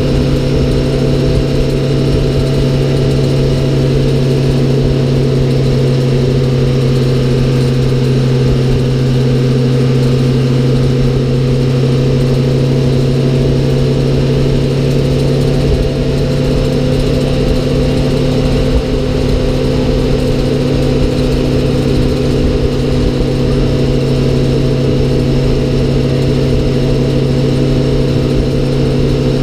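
A 1971 American LaFrance Aero Chief fire truck's engine running steadily at road speed, heard from inside the cab as an even drone with road and wind noise.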